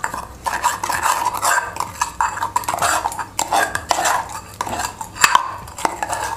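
Steel spoon stirring a wet spice paste in a small steel bowl, with quick, repeated clinks and scrapes of metal on metal.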